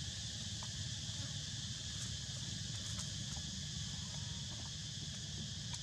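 Steady, high-pitched insect chorus over a low steady rumble, with a few faint ticks and rustles of dry leaves.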